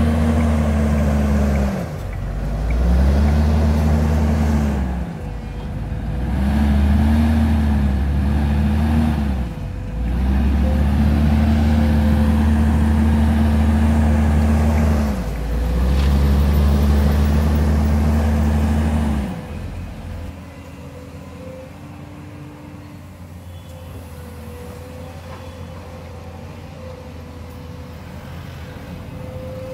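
A wheel loader's diesel engine revving up, holding and dropping back about five times, loud, as the machine works. About two-thirds of the way in it gives way to the quieter, steady engine hum of a Volvo excavator digging.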